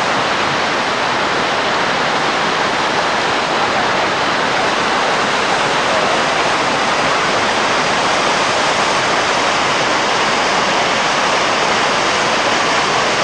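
River rapids rushing and tumbling over boulders: a loud, steady roar of white water.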